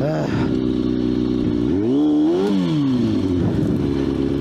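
Motorcycle engine running while the bike is ridden off-road over rocks. It revs up once about halfway through and drops back to a steady low speed.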